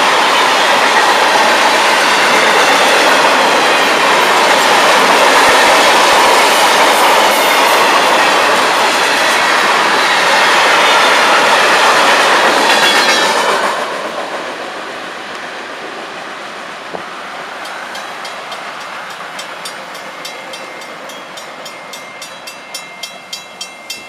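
Freight train cars rolling past close by, steel wheels running on the rails, loud and steady. About halfway through the sound drops sharply and fades as the train moves away, with a run of regular clicks near the end.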